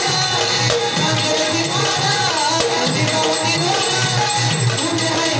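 Indian folk music played by a banjo-party band: a dholki drum beats a steady rhythm under a gliding melody.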